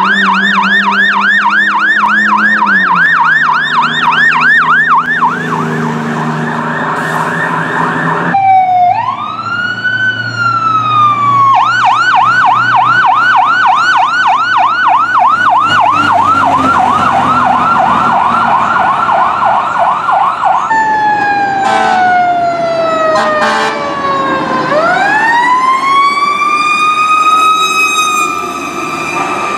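Fire truck sirens passing in several separate responses. A fast yelp switches to a slow rising and falling wail, then back to the fast yelp, then long falling and rising wail sweeps. The trucks' engines run underneath.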